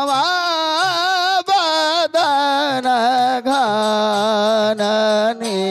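North Indian devotional folk ensemble music: a long, wavering, ornamented melody line that steps down to a lower note about halfway through, over soft regular drum strokes about twice a second.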